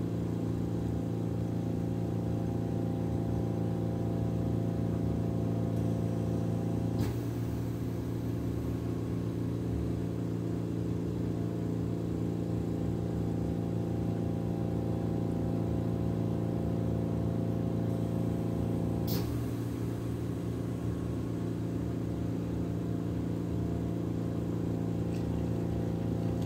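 Home oxygen concentrator running with a steady hum, with two short clicks about twelve seconds apart.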